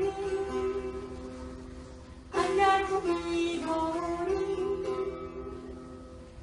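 Long-necked fretted lute played by hand: a strummed stroke about two seconds in rings out and slowly fades, under a slow, wavering sung melody.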